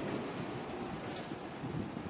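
Tobu Tojo Line electric train running past the level crossing, its wheel-and-track rumble fading away as it leaves.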